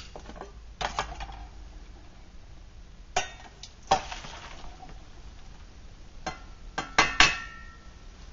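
Aluminium cookpot and its lid being handled: several separate metal knocks and clinks, the loudest near the end leaving a short metallic ring.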